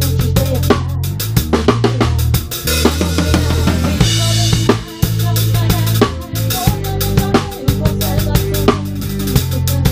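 Acoustic drum kit played close up, with kick drum, snare and cymbals keeping a steady rock beat. Held low notes from the band's other instruments sit underneath, and a cymbal wash rings out about three to four seconds in.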